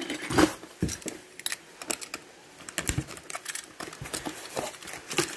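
Hands handling plastic parts, with irregular clicks, taps and a few light knocks, and some crinkling.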